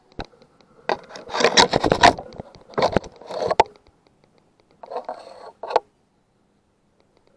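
Scraping and rustling right at the microphone in several short bursts, ending in one sharp click a little before six seconds in: handling noise as the hunter shifts his bow and gear.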